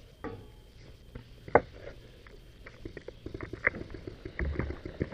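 Paintball gunfire: one sharp crack about a second and a half in, then a quick scatter of smaller pops and taps through the second half.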